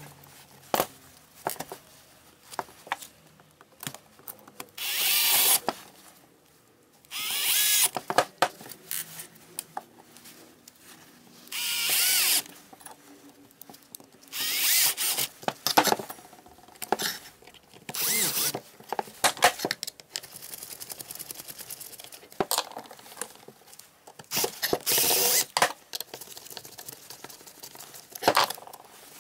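Handheld cordless drill-driver run in about eight short bursts of half a second to a second, its motor pitch rising and falling, driving screws back into a DeWalt brushless drill's gear housing. Small clicks and knocks of parts being handled come between the runs.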